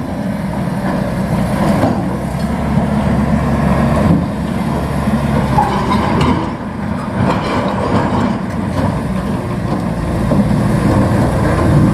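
Diesel engine of heavy construction machinery running steadily, with clattering over the engine note.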